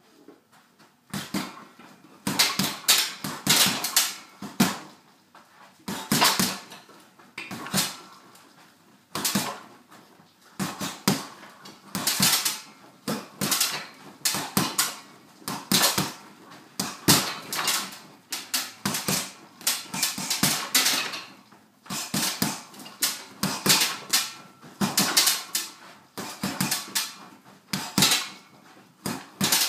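Boxing gloves punching a hanging heavy bag: quick flurries of sharp thuds with short pauses between combinations, starting about a second in.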